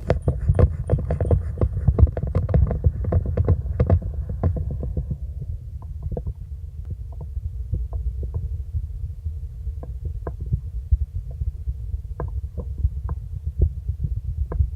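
Korotkoff sounds heard through a stethoscope during blood-pressure measurement: pulse-timed tapping roughly twice a second over a low rumble. The taps are strong for the first five seconds or so, then turn fainter and sparser.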